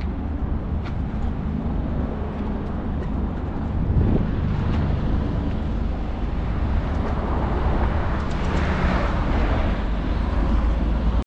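Outdoor city traffic noise with a steady low wind rumble on the microphone, swelling louder in the later seconds.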